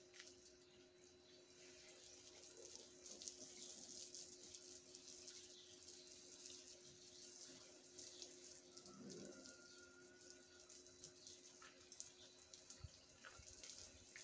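Near silence: faint background with a steady soft hiss.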